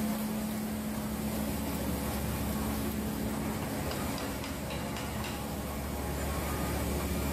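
Steady low machine hum with a steady tone from a Mitsubishi D 300 LS-S multi-unit sheet-fed offset printing press, with a few faint ticks about four to five seconds in.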